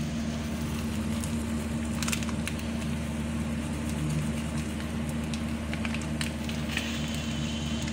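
Egg omelette sizzling in oil in a frying pan, with a steady low hum underneath. A few light clicks of a utensil against the pan come through.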